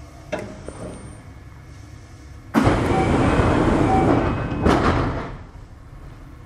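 Kintetsu 6620-series electric train: a sudden loud hiss of air about two and a half seconds long, with a short knock near its end, over a quiet low rumble.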